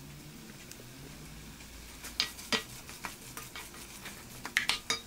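Wooden spoon stirring ground beef, vegetables and tomato paste frying in an enamelled pot, over a faint steady sizzle. From about two seconds in, the spoon scrapes and knocks against the pot several times.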